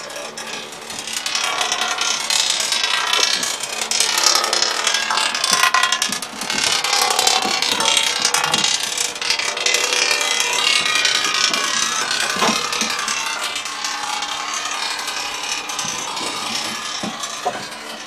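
Chevrolet 327 small-block V8 running, heard close up in the engine bay, with a busy metallic rattling clatter over the steady engine note.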